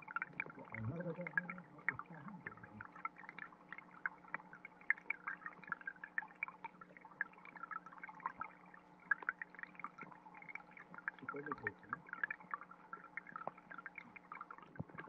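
Trickling stream water heard from underwater: a dense crackle of small clicks and ticks over a steady low hum, with a brief low gurgle about a second in and another around eleven seconds.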